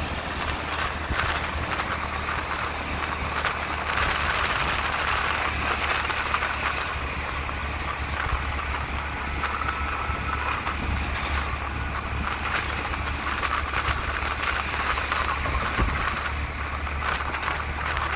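Riding in an open-sided vehicle: its engine runs with a steady low hum under continuous wind and road noise, with passing traffic around it.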